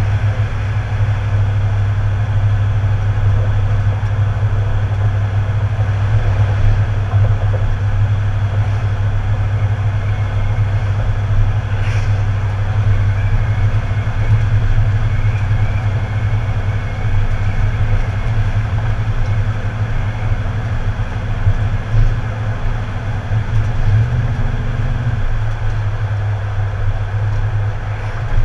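Tow vehicle driving with a boat trailer behind it: a steady low engine hum and road noise, with a short rise in the engine note about 24 seconds in.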